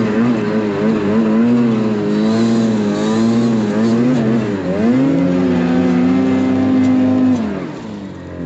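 Snowmobile engine running hard under heavy throttle. Its pitch wavers up and down about every half second, then holds steady and high for a couple of seconds before dropping away near the end as the throttle comes off.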